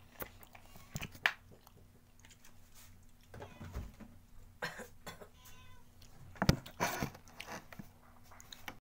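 Eating sounds: a metal fork knocking and scraping on a ceramic plate in sharp clicks, the loudest about a second in and again about six and a half seconds in, with a short pitched call a little after five seconds in.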